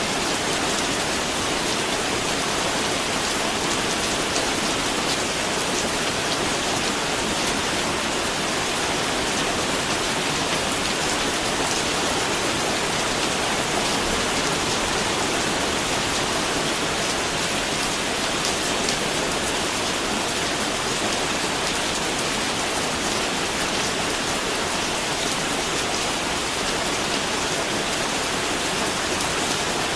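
Steady rain falling, an even hiss of many drops pattering on a surface.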